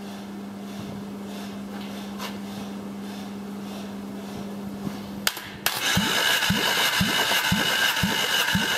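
Chevrolet B15D2 1.5-litre four-cylinder engine turned over by its starter motor for a compression test of the third cylinder. For about five seconds there is only a steady low hum. A click follows, then the starter whirs with a regular pulse about twice a second as the engine cranks.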